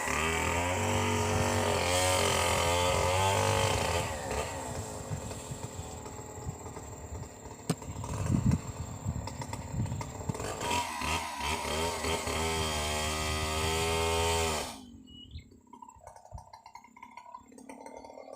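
Chainsaw engine running at high speed for a few seconds, then at lower, uneven revs that rise and fall. It stops abruptly near the end, leaving only faint sounds.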